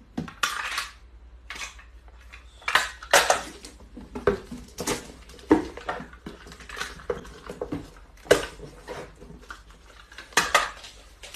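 Packing tape pulled off a handheld tape dispenser in short rips, about a dozen times, and cut against the dispenser's teeth while cardboard boxes are taped shut.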